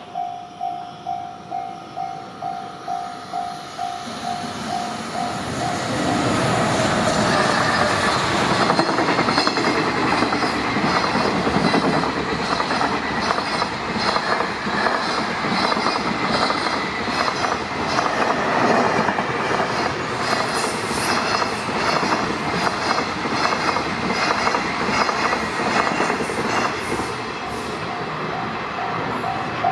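Japanese level-crossing warning bell dinging at about two strokes a second, then a freight train led by a JR Freight EF210 electric locomotive passing close, its wheels clattering over the rail joints. The train drowns out the bell for most of its length, and the bell is heard again near the end.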